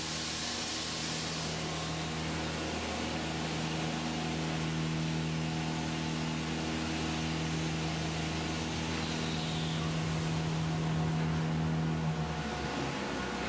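Overhead crane carrying a large steel dry-cast form, its motors giving a steady low hum with a strong single pitch over general plant hiss. The hum cuts off about twelve seconds in, as the crane stops.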